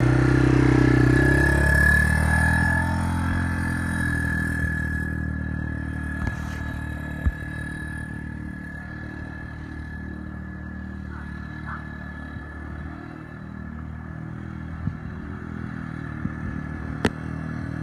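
A small youth ATV's engine running. It is loudest at first, close by, fades as the quad rides away, and grows louder again near the end, with a few sharp clicks along the way.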